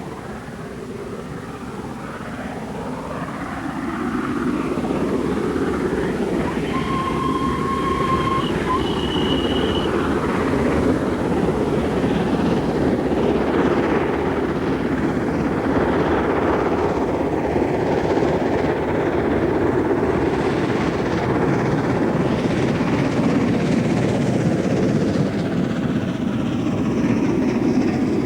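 LNER V2 class three-cylinder steam locomotive working a train, its running noise swelling over the first few seconds and then steady. Two short whistle blasts sound about seven and nine seconds in.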